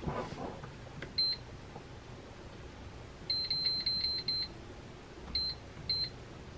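Air fryer's touch control panel beeping as its buttons are pressed to set the time and temperature (10 minutes at 200 °C). There is a single short beep about a second in, a quick run of beeps a little past the middle, then two more single beeps. A brief clatter comes at the start.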